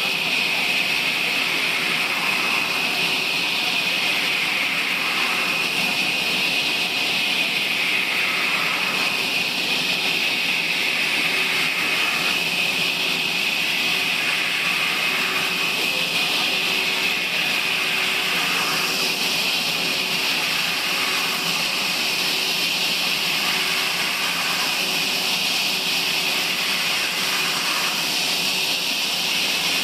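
Sawmill saw running steadily with a constant high whine as it cuts through a log.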